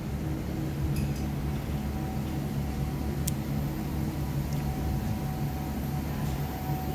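Steady low hum of supermarket background noise, with one sharp click about three seconds in.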